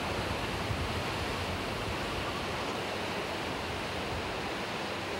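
Ocean surf breaking and washing over a rocky shoreline: a steady rush of sea noise with a deep low rumble under it.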